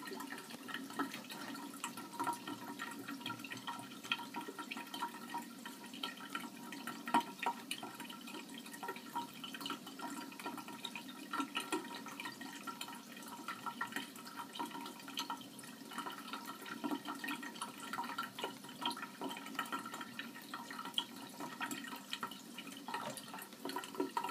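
Liquid trickling and dripping steadily, a continuous spatter of small splashes, with a faint steady hum underneath.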